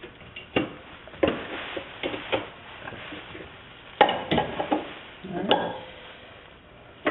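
Irregular metal knocks and clinks as a car's sway bar and its mounting hardware are worked into place against the subframe by hand, a few of the strikes ringing briefly.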